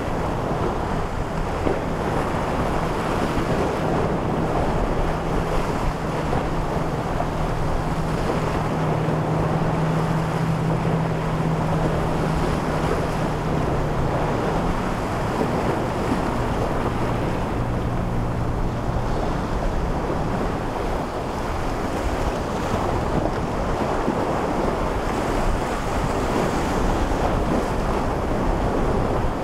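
Wind buffeting the microphone over the wash of waves, with the steady low hum of a boat engine running through the first half and dying away about two-thirds of the way through.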